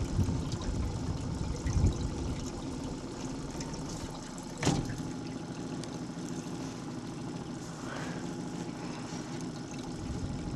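Water sloshing and trickling against the hull of a trolling boat, over a low steady rumble. A single sharp knock sounds about four and a half seconds in.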